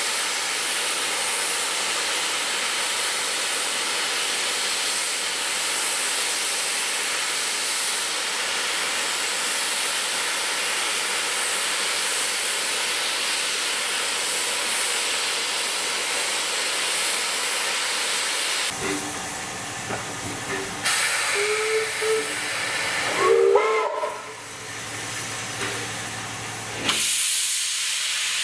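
Steam locomotive venting steam in a steady, loud hiss with no exhaust beat. About two-thirds of the way through, the hiss breaks off into a quieter stretch with a few short pitched squeals, then returns abruptly near the end.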